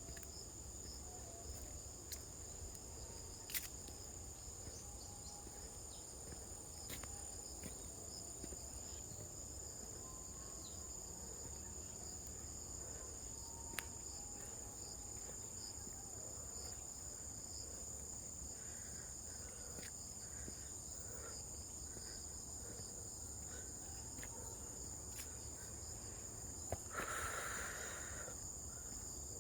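A steady, high-pitched insect chorus of crickets, with a low wind rumble underneath. A few sharp clicks, and a brief rustle near the end.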